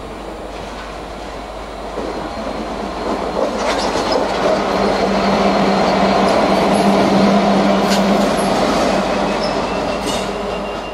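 A GB Railfreight Class 66 diesel locomotive passing, its two-stroke EMD V12 engine giving a steady low note. The sound grows louder as it draws close around the middle, with a few sharp clicks from the wheels on the rails, then eases off near the end.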